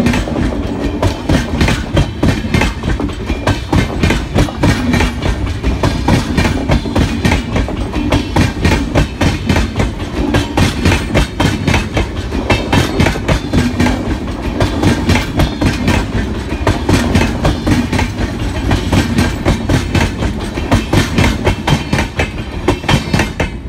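Wheels of a long train of air-conditioned passenger coaches passing close by at speed, a loud, steady, rhythmic clickety-clack of wheels over rail joints over a low rumble.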